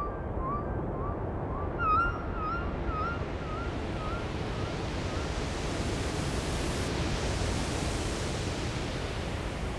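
Synthesizer sounds from an iPad synth app and a modular system: a hiss of noise swells like ocean surf, brightening toward the middle and then easing off. Over the first few seconds, a short chirping blip repeats about twice a second and fades away like an echo.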